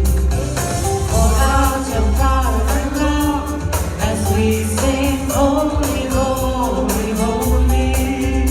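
Gospel worship song: a lead voice singing over a band with a steady beat and heavy bass.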